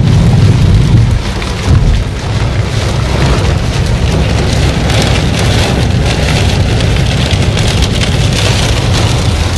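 Heavy rain pouring down in a steady dense hiss, with a loud low rumble in the first two seconds or so.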